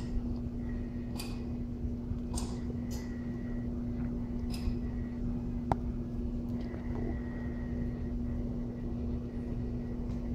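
A dog's short sniffs close up, about half a dozen spaced a second or so apart, over a steady low hum, with one sharp click about halfway through.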